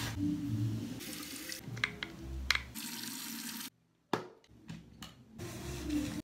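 Face being rubbed dry with a towel, a soft hiss in two stretches. After a sudden drop to quiet, a plastic pump bottle clicks once as it dispenses.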